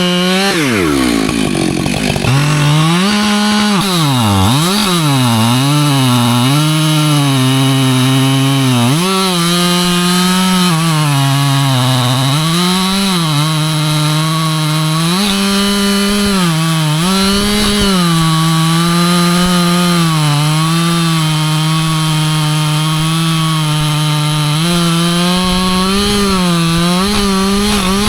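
Husqvarna two-stroke chainsaw cutting through white oak. The engine sags in pitch under load and climbs back to full revs again and again, with a sharp drop and recovery in the first couple of seconds.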